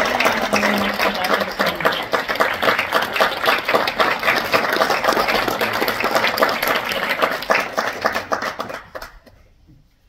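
Audience applauding, dense clapping that dies away about nine seconds in.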